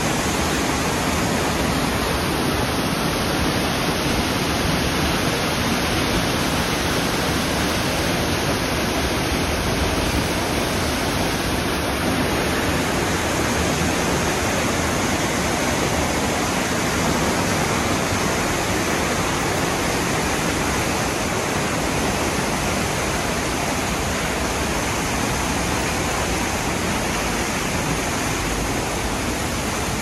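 A tall waterfall pouring down close up: a loud, steady rush of falling water that does not change.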